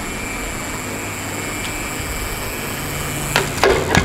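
Plastic toy truck rolling down a wooden board, its wheels giving a steady high whine over a low rumble. The whine stops a little after three seconds in, followed by a few sharp knocks as the truck bumps into a toy bus.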